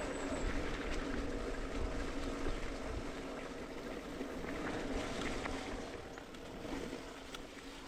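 Wind buffeting the microphone over the rumble and rattle of a mountain bike riding a dirt singletrack, with scattered clicks and knocks.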